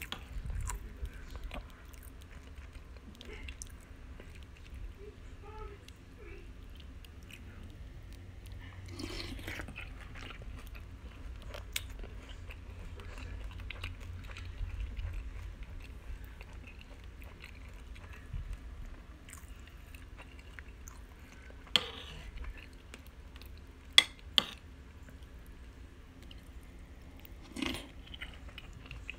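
A person chewing crunchy cinnamon cereal squares soaked in milk, with a few sharp clicks in the last third.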